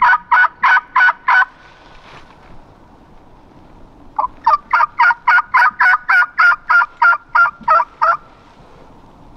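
A hunter's turkey call, blown by mouth, giving series of yelps: a run that stops about a second and a half in, then after a pause a longer run of about sixteen yelps at some four a second.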